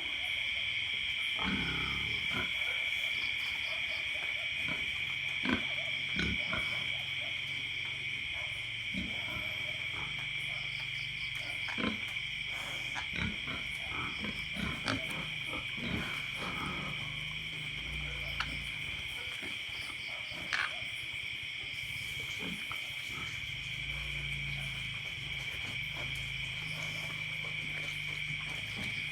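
Pigs snoring low and unevenly in a sty at night, under a loud, steady high-pitched insect chorus, with scattered small clicks and knocks.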